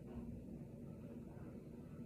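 Quiet room tone: a low, steady hum with no distinct sounds.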